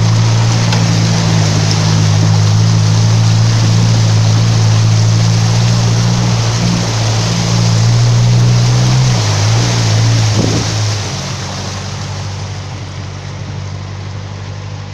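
Off-road vehicle's engine running steadily under load as it pushes through floodwater, with the tyre churning and splashing water in a constant rush. About eleven seconds in the engine note drops off and the splashing gets quieter.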